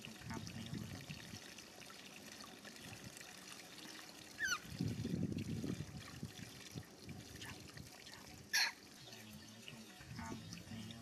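Water splashing and trickling in a metal basin as hands scoop and pour it over a baby monkey's head, in uneven bouts with a louder stretch midway. A brief falling squeak comes about halfway, and a short sharp high sound, the loudest moment, comes near the end.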